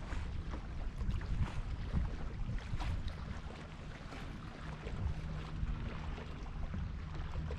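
Wind buffeting the microphone on a kayak, a steady low rumble, with water splashing and lapping at the hull.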